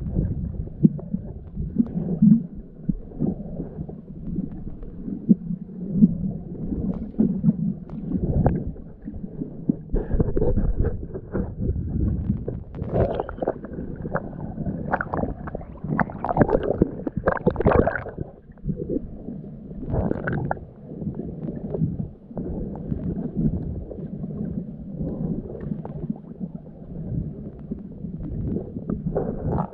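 Muffled water sloshing and gurgling around a camera in a waterproof housing as it moves underwater and through choppy surface water, in uneven swells.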